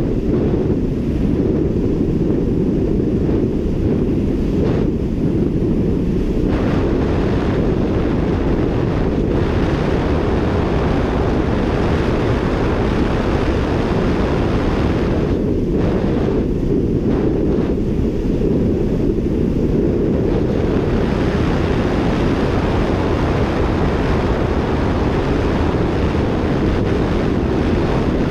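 Wind buffeting the microphone of a camera riding on a road bike during a fast descent: a loud, steady low rumble, with a hiss of rushing air that fades and returns several times.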